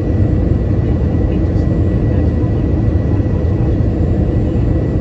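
Steady cabin noise inside an Airbus A321-211 in flight: the even low rumble of its CFM56 engines and the airflow, with a thin steady whine higher up.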